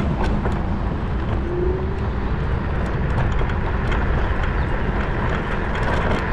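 Motorcycle under way: steady wind and running noise with scattered light clicks and rattles, and a short rising tone about a second and a half in.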